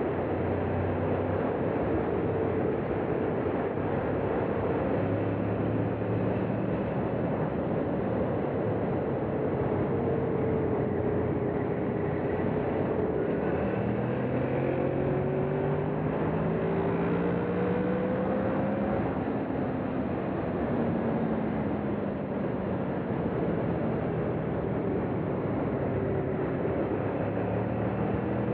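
Honda VFR800's V4 engine pulling the bike along at road speed, its pitch rising and falling as the throttle opens and closes through bends, under a steady rush of wind.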